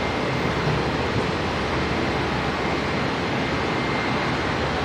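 Steady drone of a Bombardier Dash 8 Q300's twin turboprop engines as it rolls along the runway, a constant rush of noise with a faint high whine held at one pitch.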